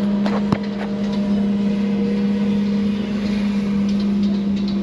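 Steady vehicle running noise with a strong constant low hum, and a single short click about half a second in.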